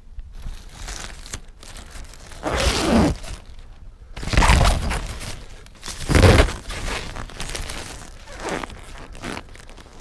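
Pop-up tent fabric rustling and crinkling in a few loud bursts as someone crawls into the tent, the loudest about four and six seconds in.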